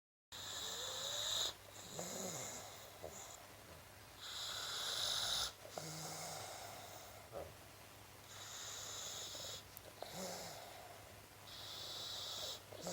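Boxer puppy snoring in deep sleep: slow, regular breaths about every four seconds, each an airy rush with a short low rumble in between.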